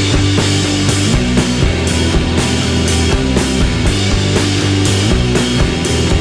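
Background rock music with a steady drum beat and distorted guitar.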